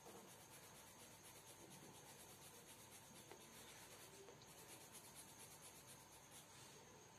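Coloured pencil scratching faintly on sketchbook paper in quick, short back-and-forth shading strokes.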